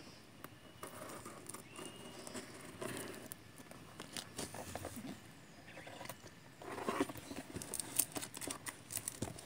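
Hands handling a parcel wrapped in plastic film and tape: faint rustling with light taps and crinkles, which grow louder and more frequent over the last couple of seconds as the parcel is picked up and turned over.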